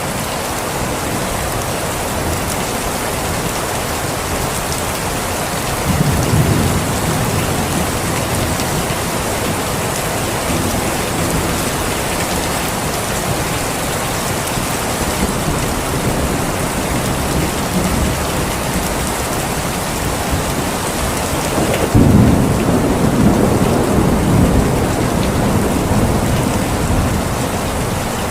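Steady rain falling, with two low rolls of thunder: a short one about six seconds in and a longer, louder one starting about twenty-two seconds in.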